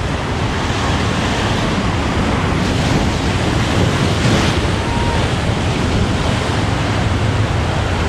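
Ocean surf breaking and washing over a rocky reef shoreline, a steady loud wash of water, with a wave crashing over the rocks about four seconds in.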